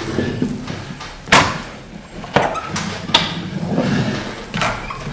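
A rubber J roller pressing paper-backed wood veneer down onto a contact-cemented cabinet panel, with rough rubbing and three sharp knocks or slaps about a second apart as the large veneer sheet and roller meet the panel.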